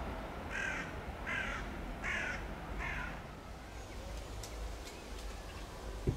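A crow cawing four times, harsh calls a little under a second apart. Near the end comes a single short thump.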